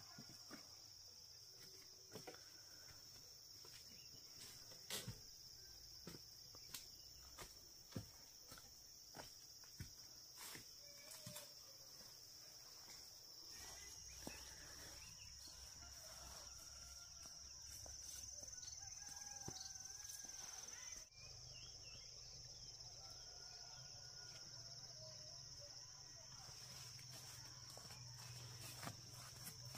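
Faint outdoor ambience: a steady high-pitched insect drone, with scattered light clicks and rustles of movement and a few faint animal calls through the middle stretch.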